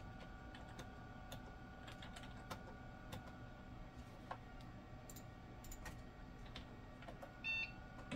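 Computer keyboard keys pressed one at a time at uneven intervals, a faint clicking over a steady faint hum. A short electronic beep sounds near the end.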